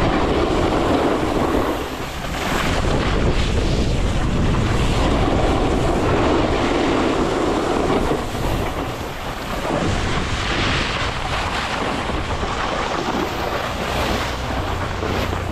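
Snowboard sliding and scraping over packed snow in a steady rush, with wind blowing across the action camera's microphone.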